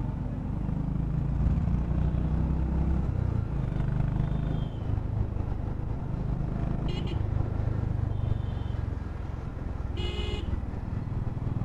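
Honda H'ness CB350's single-cylinder engine running steadily under way in city traffic, with road and wind noise. A vehicle horn honks briefly about 7 seconds in and again, louder, about 10 seconds in.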